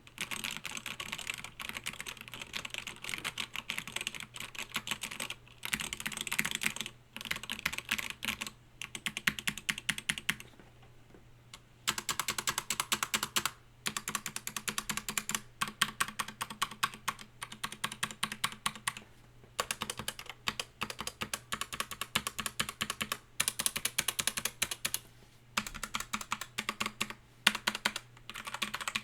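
Fast typing on a keyboard fitted with FDM 3D-printed keycaps, a dense clatter of key clicks in runs of a few seconds broken by short pauses.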